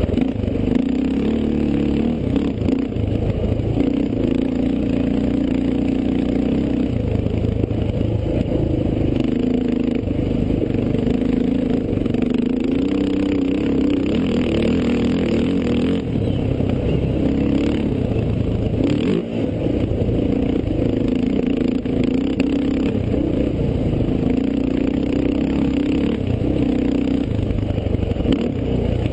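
Onboard sound of a desert race vehicle's engine running hard at speed, its note rising and dropping every few seconds with the throttle over rough ground.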